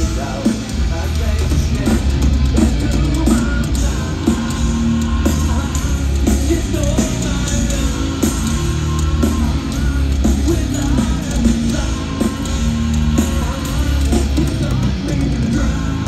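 Nu-metal band playing live: heavy distorted guitars, bass and drums with the singer singing and yelling over them, heard from the crowd through the PA.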